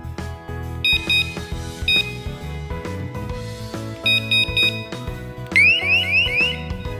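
Electronic alarm beeps over background music. Short bursts of high beeps come about a second in, once near 2 s and again around 4 s. They are followed by four quick rising chirps, the loudest sound here.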